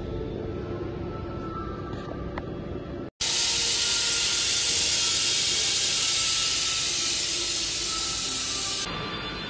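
CNC wheel lathe running with a low rumble. After a sudden cut about three seconds in, the air-blown coolant mist nozzle spraying the alloy wheel gives a loud, steady hiss, which eases near the end.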